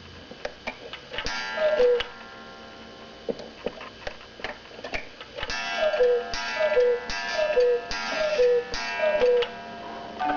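Cuckoo clock striking the hour: the bellows cuckoo call, two falling notes, sounds once about a second and a half in, then five times in a row from about halfway, each with a ringing gong strike, over the mechanism's ticking and clicking.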